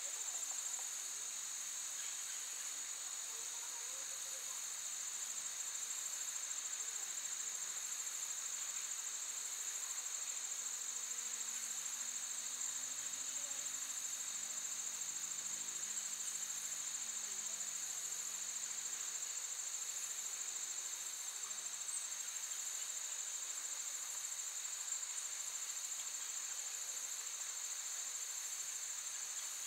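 Steady, high-pitched chorus of insects trilling without a break, with a second, fainter tone lower down.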